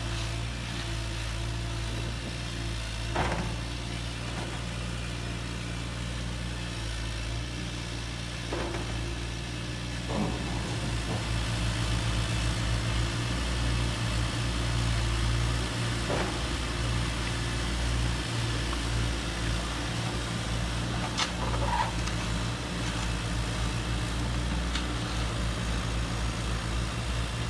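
Radio-controlled model trucks and a model excavator working, giving a steady low engine drone that gets louder about ten seconds in, with a few short clicks and knocks scattered through it.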